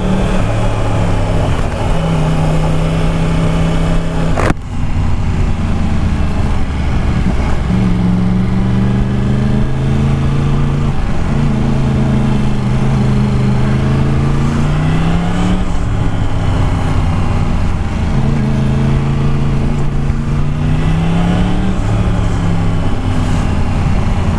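Yamaha MT-10's crossplane inline-four engine through an Akrapovic exhaust, ridden on the road: it pulls up in pitch three times, each time dropping back sharply as it changes gear, with steadier cruising between. A single sharp knock comes about four and a half seconds in.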